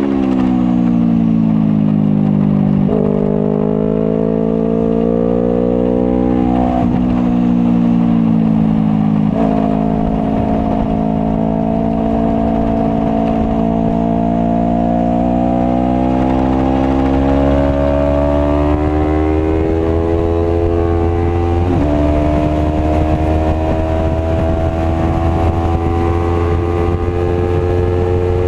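Sport motorcycle engine running hard on a race track, heard from a camera mounted on the bike: its pitch sinks and climbs slowly through the corners, with a few sudden jumps in pitch at gear changes, over a steady low wind rumble.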